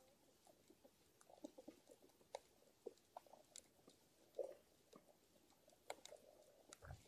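Faint underwater ambience: scattered, irregular soft clicks and pops, with a low thud near the end.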